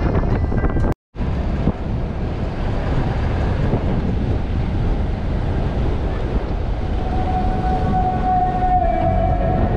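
Road rumble and wind buffeting on a microphone mounted outside a moving pickup truck, steady and low-heavy, with a brief total dropout about a second in. A steady whine joins for about two and a half seconds near the end.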